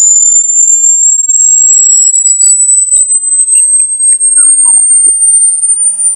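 Synthesized electronic rat-repellent sound, meant to drive off rats. It is a loud, high-pitched steady tone that climbs slowly in pitch, with fainter sweeping glides near the start and short chirps and ticks scattered underneath.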